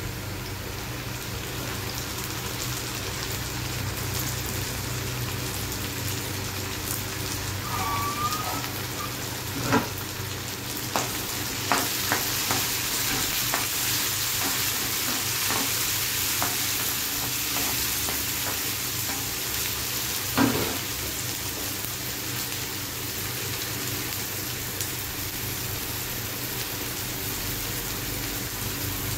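Chopped onion, green chilli and tomato sizzling steadily in hot oil in a pan. From about ten seconds in to about twenty seconds in, a spatula knocks against the pan several times while stirring.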